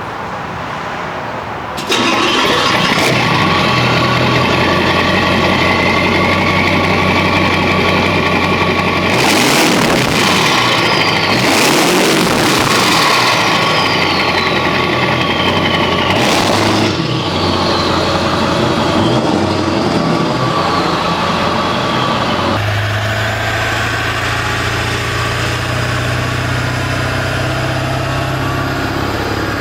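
7.3 L Powerstroke turbocharged V8 diesel in a Ford F-250 Super Duty running, with edits between clips. Around the middle it is revved a few times, each rev followed by a falling turbo whistle.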